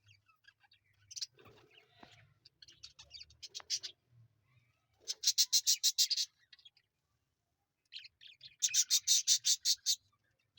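Baby parrot calling: scattered soft high chirps, then two loud runs of rapid, evenly spaced chirps, about eight a second, each lasting a second or so, in the second half.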